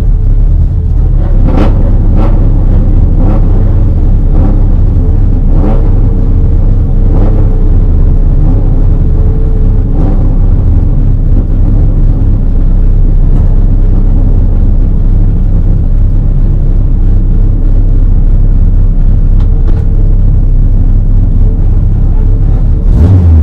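Race car running hard on track: a loud, constant rumble with a few sharp clicks and, for a few seconds in the middle, a faint steady tone.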